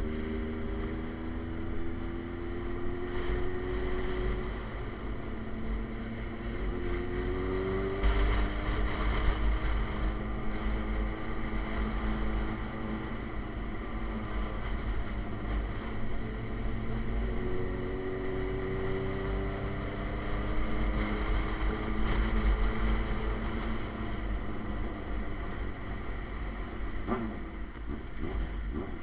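Suzuki GSX-R sport motorcycle with an SC Project aftermarket exhaust, ridden on the road. The engine pitch climbs steadily as it pulls through the gears in the first few seconds, and again later. Heavy wind rush on the microphone runs underneath.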